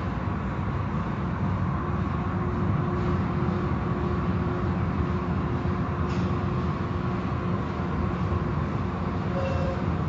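Automatic car wash machinery running: a steady low rumble with a faint constant hum.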